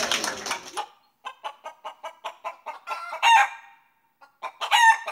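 Chicken clucking: a run of quick short clucks, about four a second, broken twice by a louder drawn-out squawk. Applause and voices fade out during the first second.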